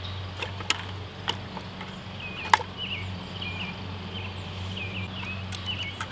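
Leafy branches being handled in plastic buckets: a few sharp clicks and knocks of twigs against the buckets, the loudest about two and a half seconds in. Under it runs a low steady hum, and a bird chirps repeatedly in the second half.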